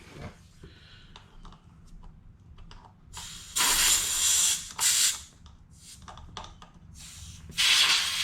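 Three bursts of loud hissing from pressurised gas: about a second long a little past halfway in, a short one just after it, and another near the end. Faint small clicks of handling come between them.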